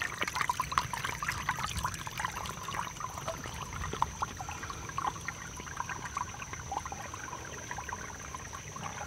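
Pond water trickling and splashing as it drains out of a 4-inch PVC pipe and runs along a dug trench, a steady, busy patter of small splashes.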